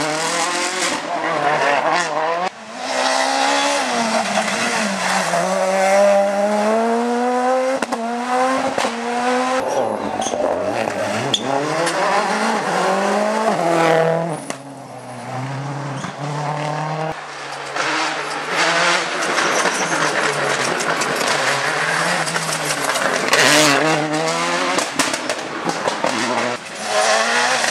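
Rally cars, among them a Ford Focus WRC and a Citroën Xsara WRC, driven hard one after another, their engines revving up and dropping sharply with each gear change and lift. The sound breaks off and restarts a few times as one car gives way to the next.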